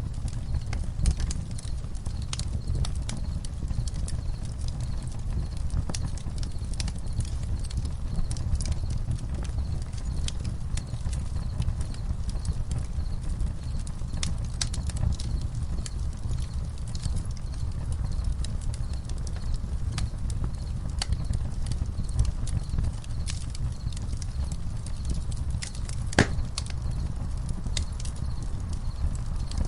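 Campfire crackling: irregular sharp pops and snaps, one louder pop near the end, over a steady low rumble.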